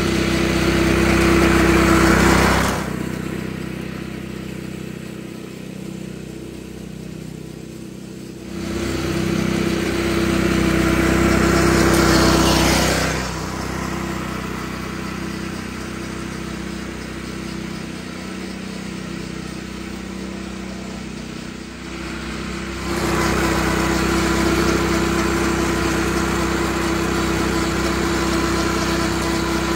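A California Trimmer 20-inch seven-blade reel mower mowing without a grass catcher, its Honda GX120 single-cylinder four-stroke engine running at a steady speed. It grows louder and fainter in turns as the mower moves nearer and farther.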